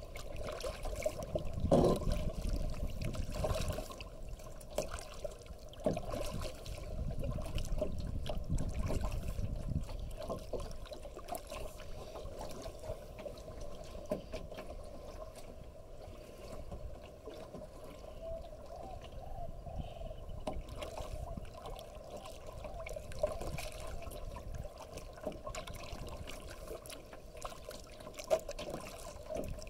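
Water trickling and splashing as a kayak is paddled: drips and small splashes from the paddle strokes and water moving along the hull. A low rumble is loudest about two seconds in and eases off after about ten seconds.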